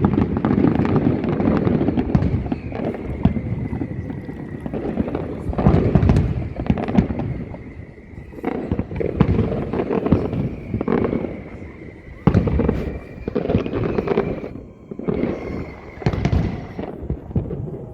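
Large fireworks display: loud waves of many sharp bangs and booms over a rolling rumble, with brief lulls between barrages.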